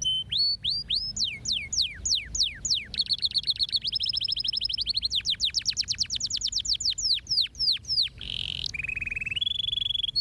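Domestic canary singing a continuous song made of repeated phrases. It runs through rows of quick downward-sweeping notes and a fast trill in the middle, then gives a brief buzzy note and a lower trill, and ends on a held whistle.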